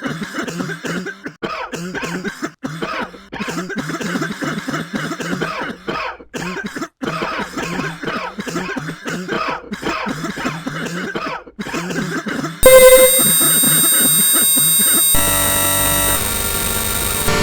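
A person coughing over and over in quick, irregular fits. About three-quarters of the way in, loud steady electronic synthesizer tones cut in suddenly, then shift to a different jumble of tones.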